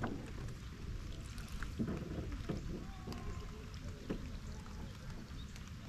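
Water lapping against a small fishing boat's hull in light rain, with scattered small ticks and a few soft knocks, the loudest at the start and another about two seconds in.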